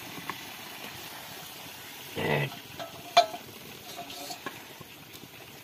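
Metal cookware handled over a wood fire: a short scrape about two seconds in, then a sharp metallic clink with a brief ring, and a fainter ring a second later. A low steady hiss of the fire and frying food runs underneath.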